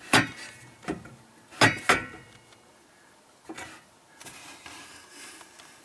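A few sharp clicks and knocks: four loud ones in the first two seconds and a fainter one about three and a half seconds in, with faint background noise between.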